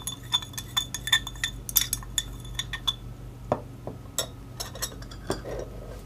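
A spoon stirring water in a glass beaker to dissolve sugar or salt, clinking against the glass several times a second with a faint high ring for about the first three seconds, then only now and then.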